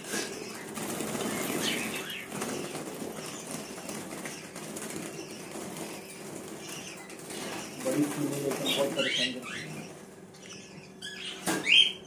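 Budgerigars flapping their wings in a wire cage as a hand reaches in to catch a jumbo budgie, with short chirps and one loud squawk near the end as the bird is caught.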